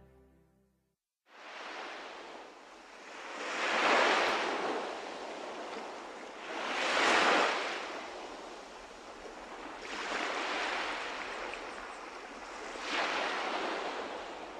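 Ocean surf: waves washing in and drawing back, swelling about every three seconds. It starts after a moment of silence about a second in.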